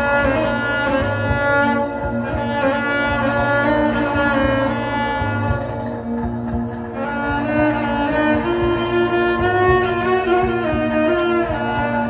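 Live cello played with the bow: slow, long sustained notes over a steady low bass note.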